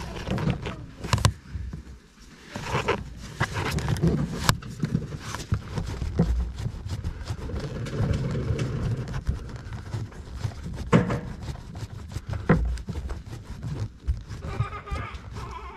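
Close-up handling sounds of gloved hands working a nut onto the rear shock absorber's top stem through the trim access hole: irregular clicks and knocks of metal and plastic, with rustling and rubbing.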